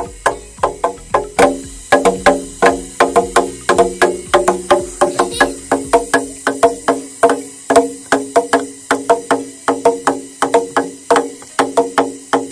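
Background music: quick, evenly spaced struck or plucked notes, about four a second, in a steady rhythm.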